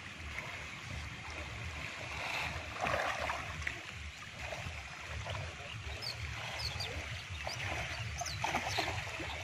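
Outdoor ambience of wind rumbling on the microphone over a soft wash of pond water, with a few faint high chirps in the second half.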